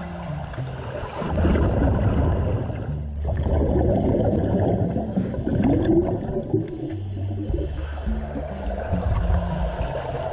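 Scuba divers' exhaled bubbles gurgling underwater, coming in surges every second or two, over background music with held low notes.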